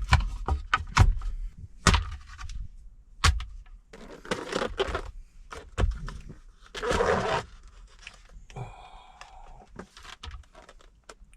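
Takeout food packaging being handled: a run of sharp clicks and knocks with bursts of plastic rustling and scraping, and a brief squeak just after the middle.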